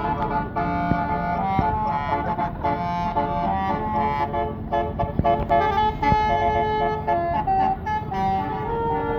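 Bus telolet horn of the basuri type playing a tune: held, stepping multi-tone horn notes over traffic noise.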